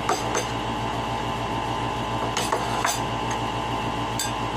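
A few light clinks and knocks of bowls, plates and a spoon being handled and set down on a table, about five in all, over a steady background hum.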